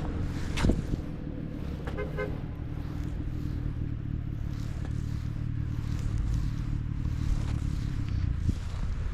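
Steady low rumble of a vehicle engine running. There is a sharp click under a second in and a quick run of about four short beeps about two seconds in.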